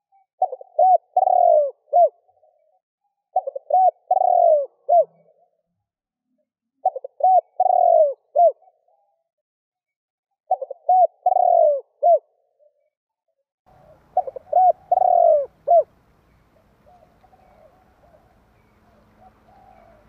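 Spotted dove cooing: five phrases, each a quick run of a few rounded coo notes lasting under two seconds, spaced a few seconds apart. A faint low hum and soft background noise come in with the last phrase.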